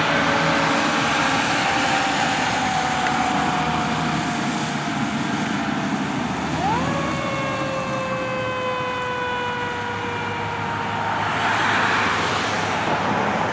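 Fire truck siren as the apparatus drives away, over road traffic noise. Its pitch slowly falls, sweeps up quickly about halfway through, then slowly winds down again. A passing car rises in the noise near the end.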